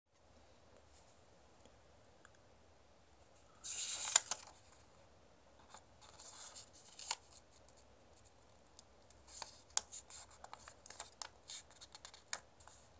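A sheet of origami paper being handled and folded by hand: a loud crinkle a little under four seconds in, then scattered crisp rustles and sharp clicks as the paper is folded in half and creased.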